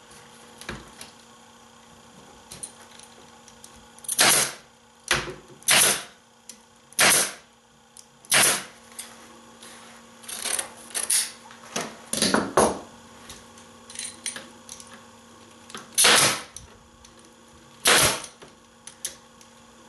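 Pneumatic upholstery stapler firing staples into the wooden seat rails to fasten jute webbing: about a dozen sharp, loud shots, several in quick succession, with gaps of quiet between. Softer snips and handling sounds come between the shots as the webbing is cut with shears.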